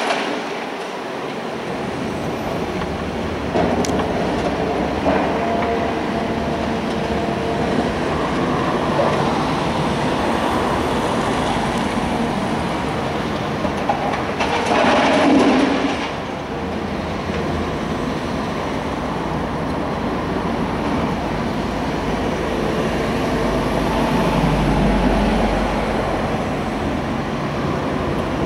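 Steady mechanical rumble of heavy machinery and traffic, with a louder rush of noise about halfway through and a deeper rumble near the end.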